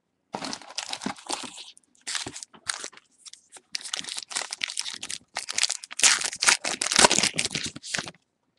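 Foil wrapper of a 2013 Topps Gypsy Queen baseball card pack crinkling and tearing as it is opened by hand, in irregular bursts, loudest about six to seven seconds in.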